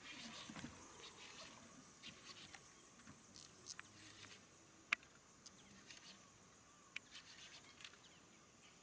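Near silence: faint outdoor ambience with a steady high insect buzz and a few small, sharp clicks, the clearest about five seconds in.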